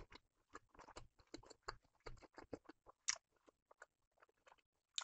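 A person chewing a mouthful of grilled bratwurst: faint, irregular mouth clicks, with one sharper click about three seconds in.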